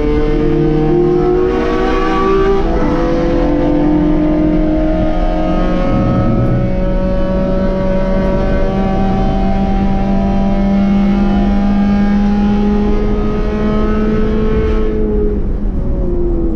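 B-Spec race car's four-cylinder engine under full throttle, picked up by a rear-mounted camera with road and wind noise: an upshift about three seconds in, then a long pull with the pitch slowly climbing, and the engine note falling as the driver lifts near the end.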